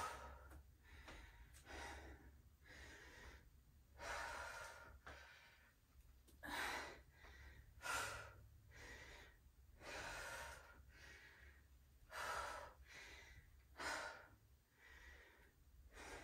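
A woman breathing audibly while doing single-leg squat-to-deadlift reps, one breath about every two seconds, faint.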